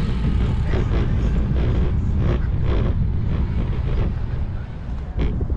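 Wind buffeting the microphone of a camera on a moving bicycle, a heavy fluctuating rumble, with tyre noise on a concrete path and a few short knocks from bumps and joints in the surface.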